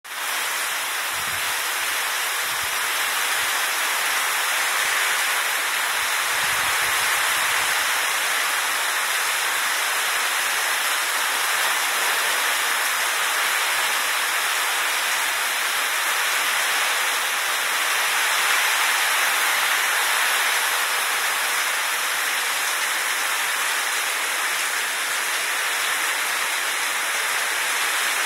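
Heavy monsoon downpour: a dense, steady hiss of rain falling hard.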